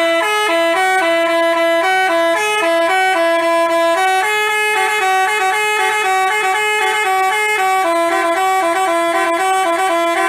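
Basuri telolet bus horn, a multi-tone musical horn playing a fast tune, each note held briefly and stepping to the next, with two pitches sounding together.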